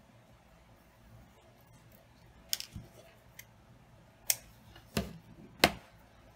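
Scissors snipping sewing thread close to a ribbon bow, heard as a few short, sharp clicks spread over the second half, the loudest near the end.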